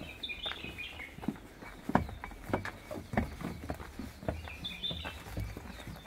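Footsteps of several people walking on a stone path, an irregular run of short knocks with a louder one about two seconds in. Birds chirp near the start and again about five seconds in.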